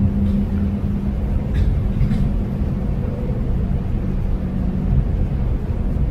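Steady low rumble of room noise, with a few faint clicks.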